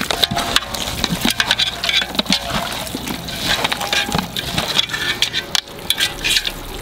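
Hands squelching and slapping raw quail pieces through a thick, wet masala paste in a large metal pot, mixing them to marinate. The sound comes as an irregular run of wet slaps and smacks.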